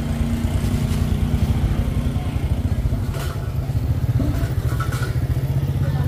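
A motorcycle engine idling steadily, a low even rumble, with a light knock about three seconds in.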